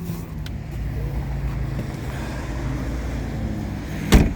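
A car engine running steadily at idle, with a low rumble. A single sharp thump sounds near the end.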